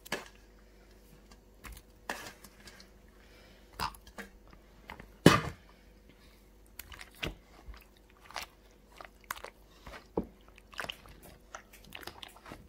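Whole strawberries being stirred and pressed into a steel bowl of mashed strawberries with a plastic spoon: irregular wet squelches and knocks, the loudest about five seconds in.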